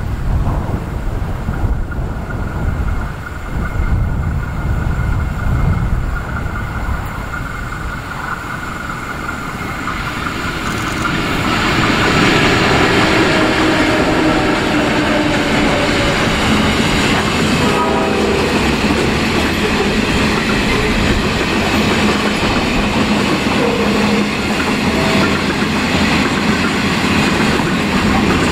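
Wind rumbling on the microphone as a pair of 81 class diesel-electric locomotives approach. From about eleven seconds in they pass close by, and a long string of empty grain hopper wagons follows, rolling steadily past on the track.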